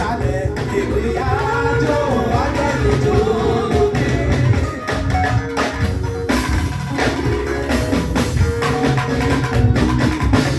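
Live church music: voices singing a Yoruba hymn over a band with drums and bass keeping a steady beat.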